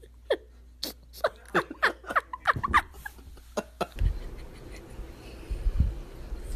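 A cat giving a rapid run of about a dozen short meows over the first few seconds. Then, from about four seconds in, a low rumbling.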